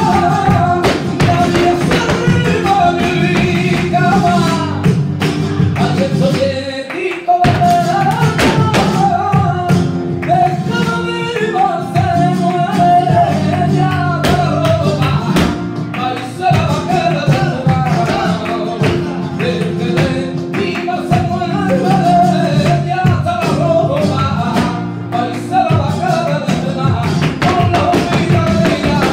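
Live flamenco: a male singer's wavering, ornamented cante over flamenco guitar, with sharp hand-clapping (palmas) keeping the rhythm. The singing breaks off briefly about seven seconds in.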